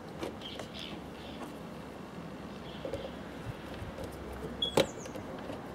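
Small clicks and taps of a screwdriver working a screw terminal on a solar charge controller as a wire is fastened, with one sharper click near the end.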